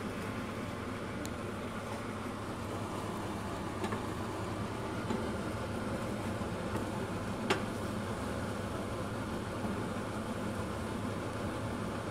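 Steady hiss and hum of eggs cooking in a frying pan on a lit gas hob as they are stirred with a plastic spatula, with a few light clicks of the spatula against the pan, the sharpest about seven and a half seconds in.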